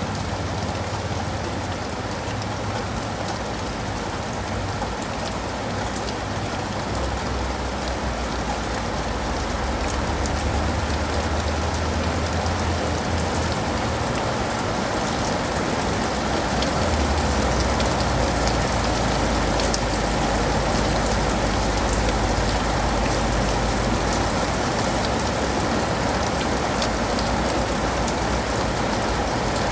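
Steady rain falling, with drops pattering on leaves and pavement, growing a little heavier about halfway through, over a low rumble.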